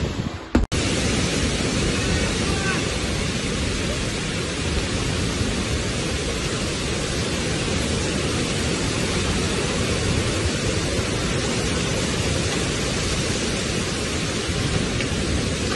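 Heavy rain and strong wind of a severe thunderstorm: a steady, dense rushing noise. It drops out for a moment less than a second in.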